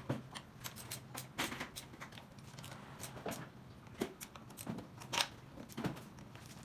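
Metal clicks and clinks of a ratchet socket wrench working bolts on a Suzuki K6A engine's cylinder head: irregular short clusters of clicks, with a few sharper knocks of tool on metal.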